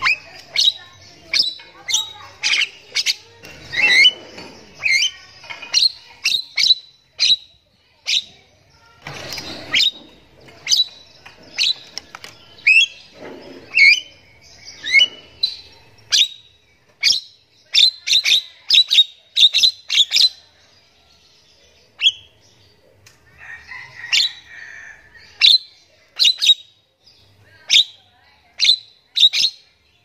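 Javan myna calling steadily: a long run of sharp, whistled chirps, about one or two a second, mixed with a few harsh rasping notes, with a short pause about two-thirds of the way through.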